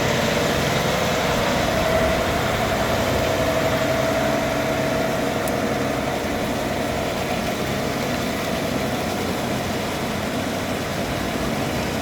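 An engine running steadily at idle, with a faint whine that fades about halfway through.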